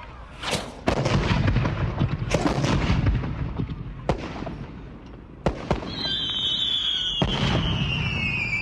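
Rifles firing on an outdoor range: about half a dozen shots at irregular intervals, each followed by a rolling echo. From about six seconds in, a high whistling tone slides slowly down under the shots.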